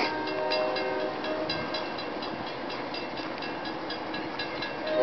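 MBTA commuter train's horn sounding a held chord that fades after about a second and a half and comes back right at the end. Under it a grade-crossing bell dings rapidly and evenly.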